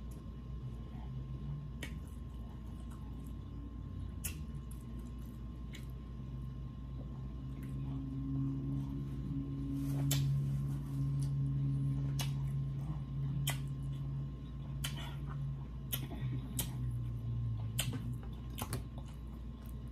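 Eating noises: scattered sharp clicks and smacks of the mouth and fingers while seafood is eaten by hand. Through the middle, a low closed-mouth vocal hum is held for several seconds, with a steady background hum underneath.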